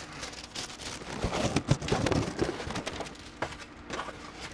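Paper rustling and crinkling as sheets of red-and-white checkered deli paper are pulled down and handled, loudest about a second in.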